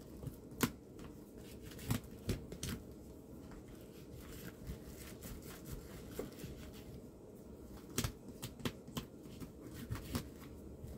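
Gloved hands rubbing and pressing foil tape down over a flexible foil duct joint, a faint crinkling rustle broken by scattered sharp clicks, the loudest ones about half a second in and about eight seconds in.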